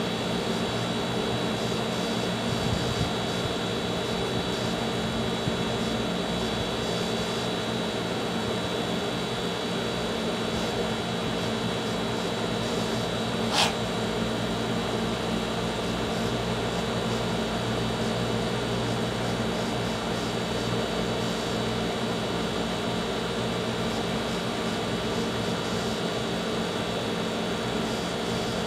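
Steady mechanical hum at a constant pitch, like a running air-conditioning unit or fan, with one brief click about fourteen seconds in.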